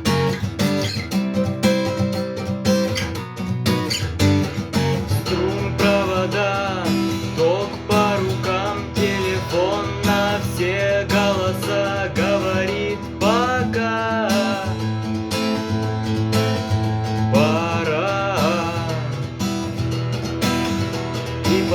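Music: an acoustic guitar strummed in a steady rhythm, with a voice singing a melody over it from about six seconds in.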